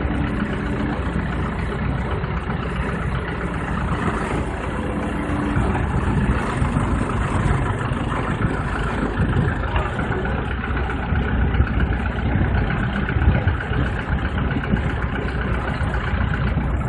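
Engine of an HFPV-1 solar spiral pile rig running steadily.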